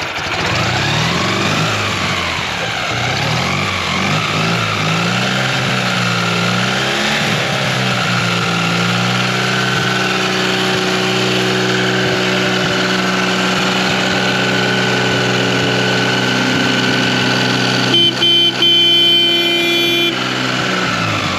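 Ural sidecar motorcycle's flat-twin engine running just after starting. The revs rise and fall for the first several seconds, then it settles to a steady idle. Near the end a loud higher tone sounds for about two seconds.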